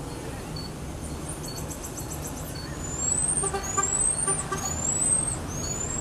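Marmoset giving four high, thin whistles in a row from about two and a half seconds in, each rising in pitch. It is calling to the rest of its family group.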